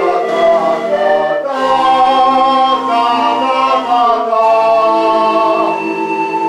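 Firlinfeu ensemble, Lombard cane pan flutes of many sizes, playing held chords together in several parts. The chord changes about a second and a half in and again near the end.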